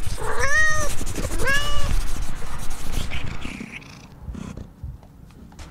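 A cat meowing twice, two drawn-out calls that rise and fall in pitch, followed by quieter low rumbling noise.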